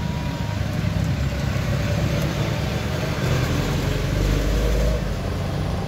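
Low, steady rumble of a motor vehicle's engine running close by, swelling louder about four seconds in and easing off near the end.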